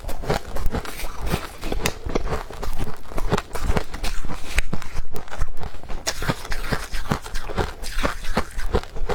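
Close-miked chewing of powdery freezer frost: a rapid run of soft crunches, several a second, without let-up.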